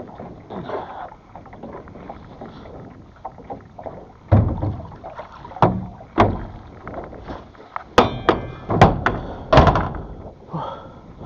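Anchor weight being hauled up by rope into a small boat: handling noise, then a series of sharp knocks and thuds against the hull. There is a short metallic ringing clank about eight seconds in.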